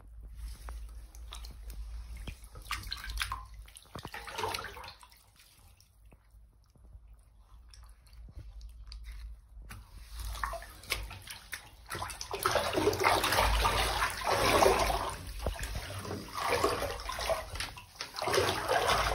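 Shallow bathwater sloshing and splashing in a bathtub as a body shifts in it, sparse and soft at first, then louder and more continuous from about twelve seconds in.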